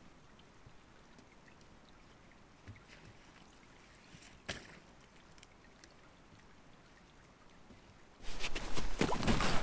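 Faint outdoor quiet with a couple of small knocks, the clearest about four and a half seconds in. About eight seconds in, loud close rustling and scraping suddenly starts, as of gear being handled on a snowy dock beside an inflatable kayak.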